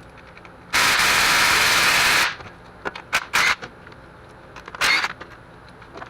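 A pneumatic tool runs in a loud, even rushing burst of about a second and a half while bolts come out of the engine's front end. A few short metallic clicks follow, then a second, shorter burst near the end.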